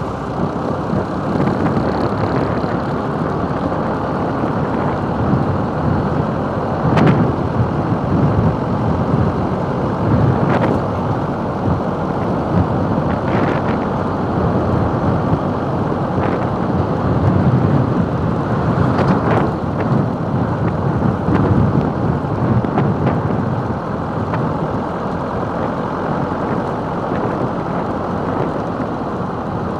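Wind rushing over the microphone of a camera mounted on the roof of a moving camper van, a loud steady rumbling rush mixed with road noise from the vehicle. There are a few brief sharper knocks or gusts along the way.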